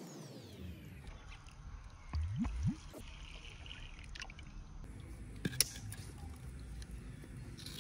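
A thin stream of water trickles from a small clay pot into a bowl of raw rice for washing, briefly in the middle. About two seconds in there is a short low rising sound, and a sharp click follows a little later.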